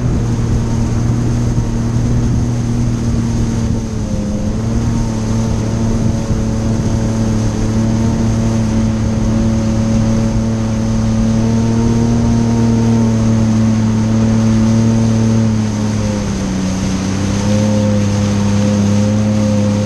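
Jet ski engine running steadily at cruising speed, its pitch dipping slightly about four seconds in and dropping again near the end, over the rush of water spray and wind.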